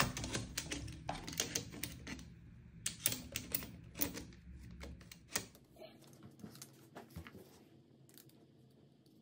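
Quick clicks and light knocks of hard accessories being handled and fitted onto an airsoft rifle. They come thick for the first five seconds or so, then thin out to a few scattered taps.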